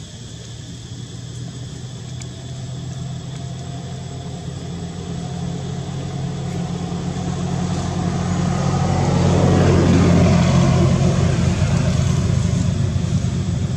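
A motor vehicle's engine approaching, growing steadily louder, loudest about ten seconds in as it passes, then beginning to fade.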